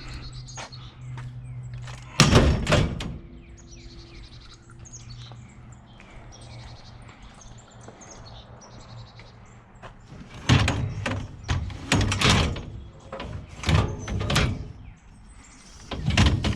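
Scrap metal being handled, clanking and banging: one burst of knocks about two seconds in, then a run of them from about ten seconds in to the end.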